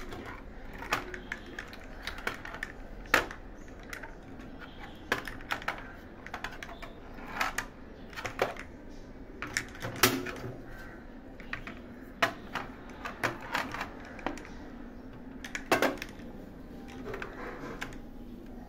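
12-gauge shotgun shells being handled and set upright on a metal tray: irregular clicks and clinks of shells against the tray and against each other, with a few louder knocks.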